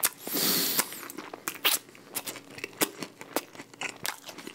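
Close-miked chewing of crispy-coated baked chicken: a string of sharp, irregular crunches, after a short hiss lasting under a second at the start.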